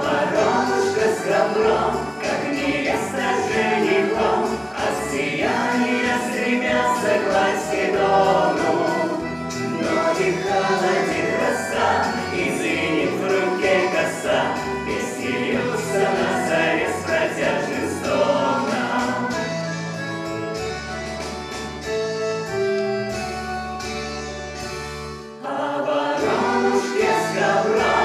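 A song: a group of voices singing together over instrumental accompaniment.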